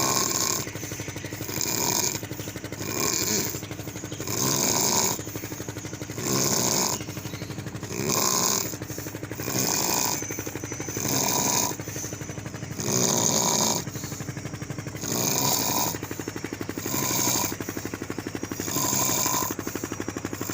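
A sleeping person snoring loudly, a rattling snore on each breath that repeats every second or two, with stronger and weaker snores taking turns.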